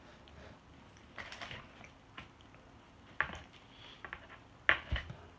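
Handling noise next to a phone lying face down: scattered light clicks and knocks as food and containers are moved about. The loudest knocks come about three seconds in and again near the end.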